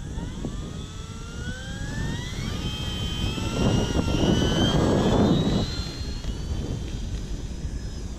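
Brushless electric motor (4258, 650 KV) of a radio-controlled FMS P-51D Mustang turning a four-blade prop, its whine rising steadily in pitch over the first few seconds as the throttle opens for takeoff. A loud rush of noise follows in the middle, the loudest part, and then a steadier high whine, with wind on the microphone.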